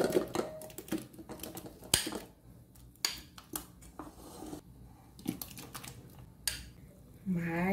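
Metal spoon clinking and scraping against a glass bowl and an aluminium ring pan while scooping wet diced mango into the pan. It makes a series of irregular sharp knocks, the loudest about two seconds in.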